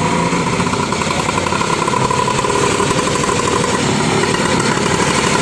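Engine sound of a three-wheeled bemo, running steadily with a fast, even putter.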